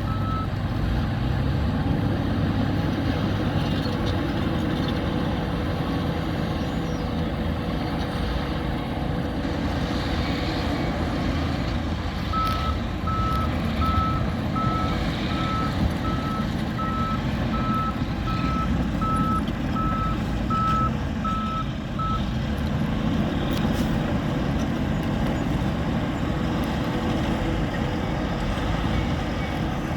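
Heavy construction machinery running with a steady diesel engine rumble. A reversing alarm beeps briefly at the start, then again steadily, about one and a half beeps a second, for roughly ten seconds in the middle, as a machine backs up.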